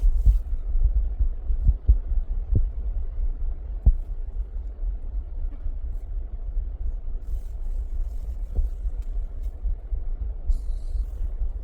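Low, gusting rumble of wind buffeting the microphone, with a few soft thumps in the first four seconds and once more near the end.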